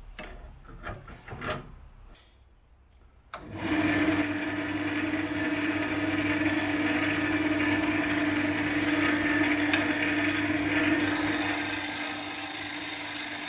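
A few quiet knocks and clicks, then about three seconds in a wood lathe starts abruptly and runs with a steady hum. A carbide-tipped turning chisel scrapes the spinning hardwood blank of a gear knob, a rough rasping over the hum that eases slightly near the end.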